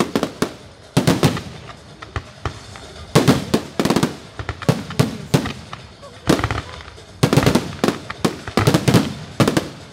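Aerial firework shells bursting in rapid volleys: many sharp bangs and crackles in clusters, with a short lull about two seconds in.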